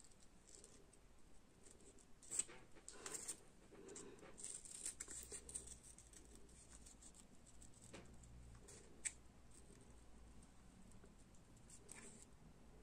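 Small craft scissors faintly snipping around a stamped image on watercolour paper: a scatter of soft clicks and crisp cuts, the clearest about two and three seconds in and again near nine seconds.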